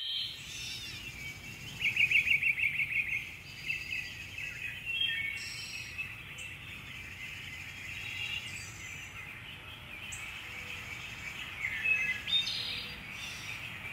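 Several birds chirping and trilling in an overlapping chorus, loudest in a fast trill about two seconds in.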